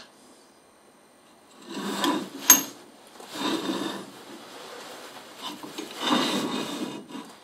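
Heavy steel machine vise being slid and repositioned on a drill press's metal table: three scraping rubs of metal on metal, with one sharp metallic knock a little over two seconds in.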